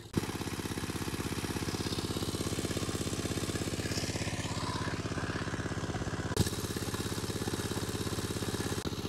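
Small engine-driven water pump running steadily at an even beat while draining a pond, with water gushing from its outlet pipe. A single sharp knock about six seconds in.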